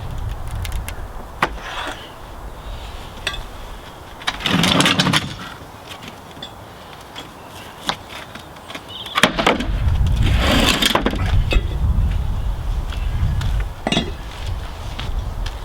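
Steel pallet buster prying boards off a new wooden pallet. There are scattered sharp knocks of the bar on wood, and twice a longer spell of cracking and creaking as a board and its nails give way. Wind rumbles on the microphone.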